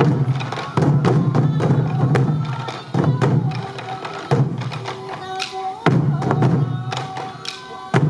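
Sansa dance taiko drums, many of them beaten together by the troupe. Heavy unison strikes with a low ring fall about every one and a half to two seconds, with lighter stick strokes between. A traditional bamboo flute (fue) melody plays above the drums.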